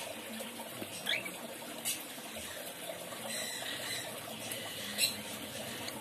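Quiet, steady background noise with a few light clicks and taps of hands handling an aloe vera leaf and a plastic box of bird leg rings. A short rising chirp comes about a second in.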